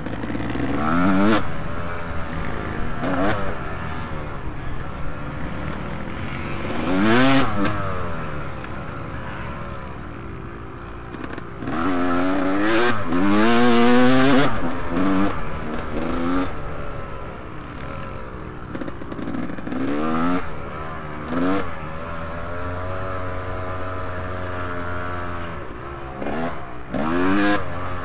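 Motocross motorcycles racing, their engines revving up and dropping again and again as they accelerate and shift gears. The loudest run comes about halfway through.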